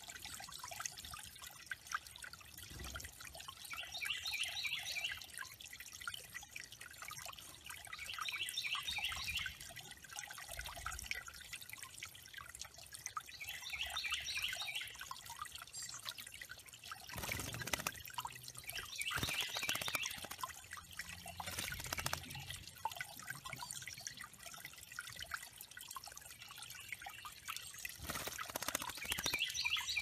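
Small backyard waterfall trickling and dripping into a pond. A songbird sings a short phrase of rapid high notes about every five seconds, and a few splashes come in the second half as a bird bathes.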